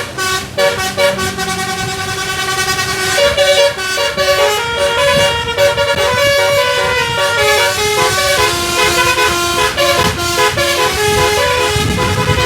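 Tour bus's telolet basuri musical air horn playing a melody: a quick run of short toots at first, then longer held notes stepping up and down in pitch.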